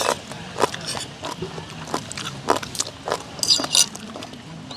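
Irregular light clicks, knocks and clinks of small objects being handled, with a brighter clattering clink about three and a half seconds in.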